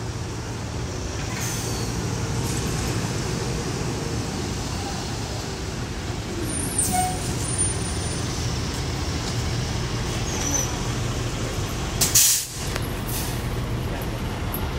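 2018 Hometown Trolley bus idling at a stop, a steady low engine hum, with a short loud hiss of released air about twelve seconds in.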